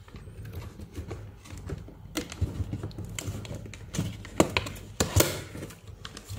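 Cardboard product box being opened and handled by hand: an irregular run of light clicks, taps and rustles of the flaps and packaging, with a few sharper knocks in the second half.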